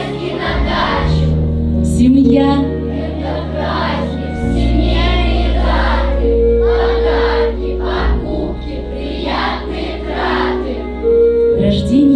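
Background music: a song with a choir singing over sustained chords and bass notes.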